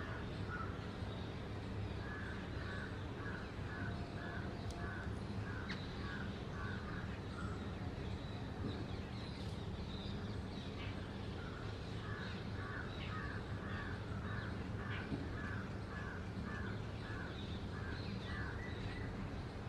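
A crow cawing in long, evenly paced runs of about two caws a second, over a steady low hum.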